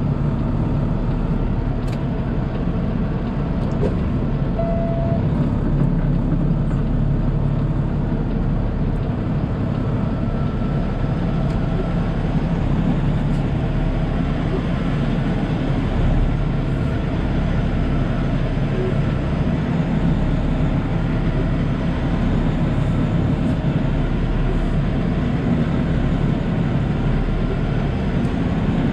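Semi truck's diesel engine running steadily at low speed, heard from inside the cab, as the truck rolls slowly forward.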